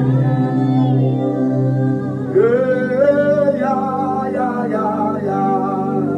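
Slow worship singing over sustained held chords; a voice comes in about two seconds in, sliding up into a held note.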